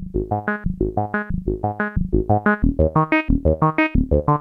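Synthesizer music: a fast run of short, evenly spaced keyboard notes, about six a second, that starts abruptly.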